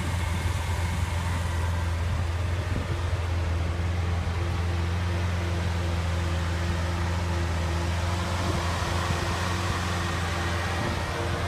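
Lamborghini Aventador's 6.5-litre V12 idling: a steady low hum with a few faint higher tones above it.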